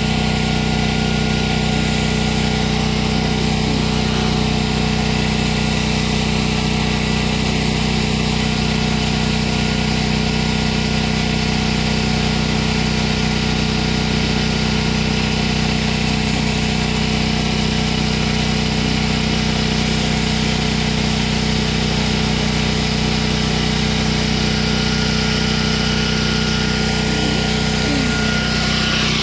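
A motor running steadily at an even pitch, a constant mechanical hum that does not change.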